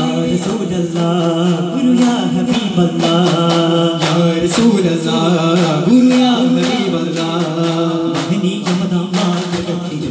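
Voices singing a daff muttu song in unison, with daffs (hand-held frame drums) struck in a quick, steady rhythm under the singing.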